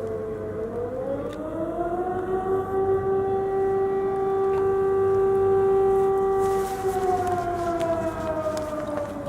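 Civil-defence air-raid siren wailing. It rises in pitch about half a second in, holds a steady tone for several seconds, then slowly falls near the end.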